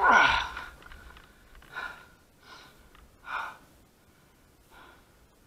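A person breathing hard: a loud gasping breath at the start that falls in pitch, then heavy breaths about every second that fade toward the end.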